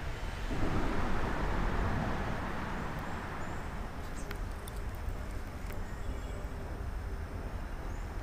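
Road traffic on the bridge overhead, heard from beneath it as a steady rumble. One vehicle crosses about half a second in, swelling and fading by about two and a half seconds.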